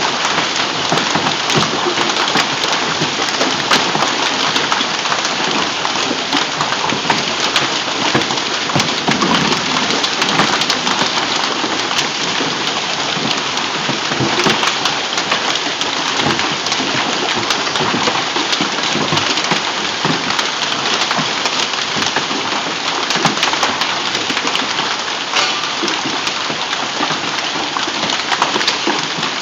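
Heavy hailstorm: hailstones and rain pelting down without a break, a dense, loud clatter of countless small impacts.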